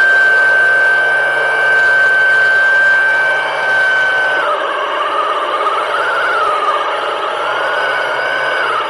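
Electric motor and propeller of an underwater scooter whining, heard underwater. The whine holds one high steady pitch, then about halfway through it drops and wavers up and down, over a constant churning hum.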